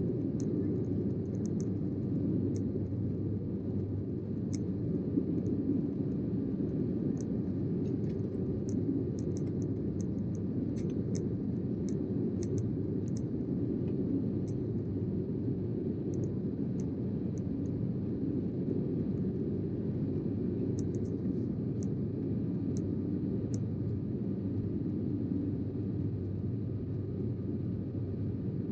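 Steady low roar inside the cabin of a Sukhoi Superjet 100 airliner in flight, from its PowerJet SaM146 turbofans and the airflow, with faint small clicks and ticks scattered through the first half.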